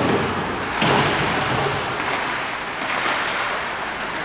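Ice hockey game in play: a steady hiss of skates on the ice mixed with rink noise, swelling about a second in.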